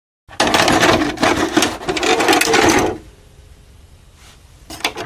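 Videocassette recorder taking in and loading a VHS tape: a burst of clattering and whirring from the tape mechanism for about three seconds, then a faint hiss and a couple of clicks near the end.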